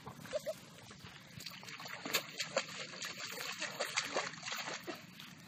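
Shallow muddy paddy water splashing and sloshing as children wade and dig into the mud with their hands and a hoe, with a run of quick small splashes in the middle.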